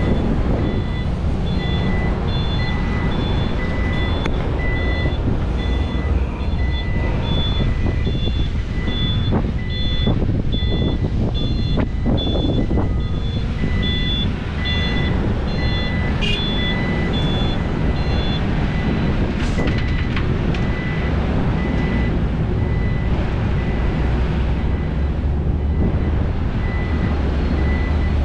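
Heavy diesel engines of excavators and dump trucks running steadily, with two reversing alarms beeping: one about once a second throughout, a higher one about twice a second that stops about two-thirds of the way in. A few knocks sound in the middle.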